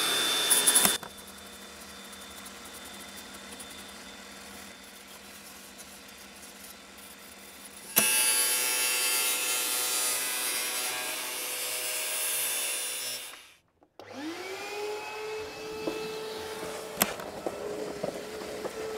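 Angle grinder with a grinding wheel cleaning up the cut metal edges of a tailgate, in two spells: one that stops about a second in and a longer one from about eight seconds to thirteen seconds. Near the end a motor spins up, rising in pitch and settling into a steady whine.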